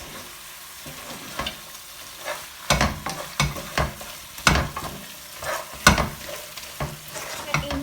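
Chicken stirred in a frying pan with a utensil: irregular scrapes and knocks against the pan over a soft, steady sizzle, as the crushed ginger, green chilli and garlic mix is worked into the chicken.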